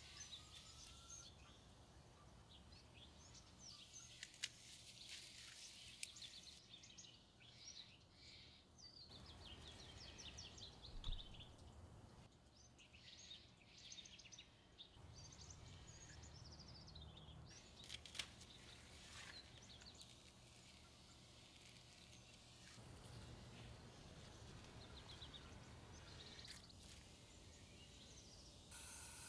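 Faint birdsong: several small birds chirping and twittering over a low background hum, with a few soft clicks now and then.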